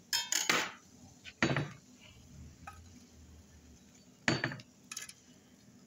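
Metal utensil knocking and scraping in a cast-iron multi-well pan as rice-flour pitha are lifted out: a few short, sharp clinks, two close together at the start, another about a second and a half in, and the loudest about four seconds in.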